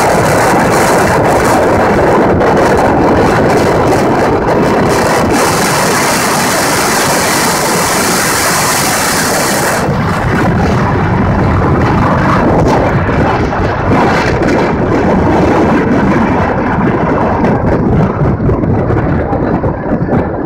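Loud, steady rush of wind buffeting the microphone at speed on a fast downhill run, mixed with wheels rolling on asphalt. A brighter hiss joins in for a few seconds in the middle and cuts off abruptly.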